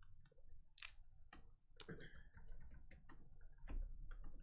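Faint, irregular light clicks and taps from hands handling trading cards and plastic card sleeves, over a low steady hum.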